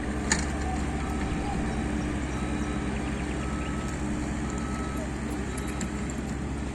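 Excavator's diesel engine running steadily, with a beeper sounding in short, evenly spaced tones about once a second. A single sharp knock about a third of a second in.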